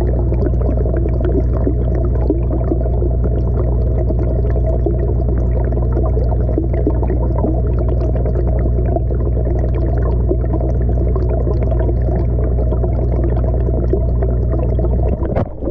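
Muffled, steady rush of water heard through a submerged action camera in a fish pond, with a constant low hum and crackling underneath. The sound drops away abruptly right at the end.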